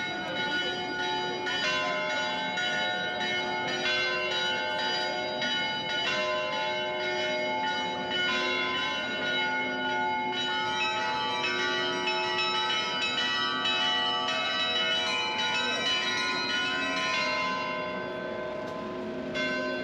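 Bells of the Swiss Glockenspiel clock playing a tune: one ringing note struck after another over the sustain of the earlier ones, growing a little fainter near the end.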